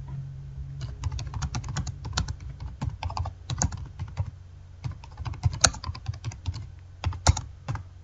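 Typing on a computer keyboard: a quick run of key clicks starting about a second in, a short lull around the middle, then more keystrokes with a few louder clacks.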